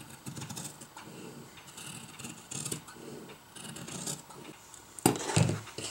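Scissors cutting through two pinned layers of fabric, linen and cotton, in a run of repeated snips. A louder thump comes about five seconds in.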